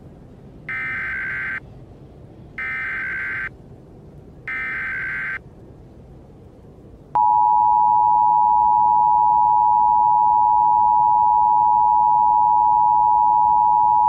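Emergency Alert System signal: three short bursts of the screeching SAME data header, then the two-tone attention signal, a steady dual tone held for about seven seconds. It announces a tornado warning.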